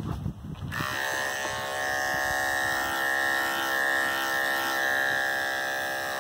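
Andis electric dog clippers switched on just under a second in, then running with a steady buzz as they trim a long spot left in the schnauzer's coat.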